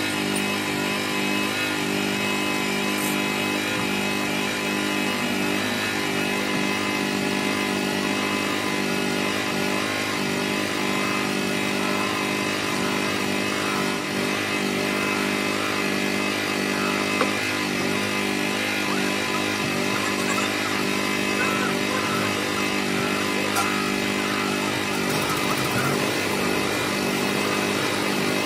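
Electric bench buffing motor running steadily with a constant hum, its red buffing wheel polishing a plastic car headlight lens pressed against it.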